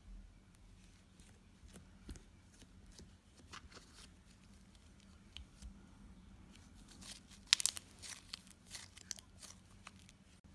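Slime being handled, giving scattered small clicks and crackles, with a denser, louder cluster about seven and a half seconds in.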